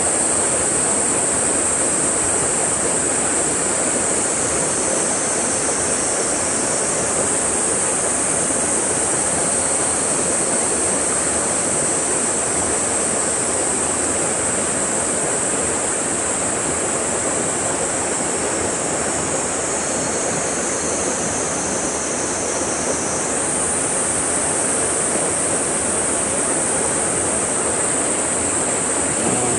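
Steady rush of stream water pouring into a rock-walled pool from a small cascade, an even hiss with no breaks.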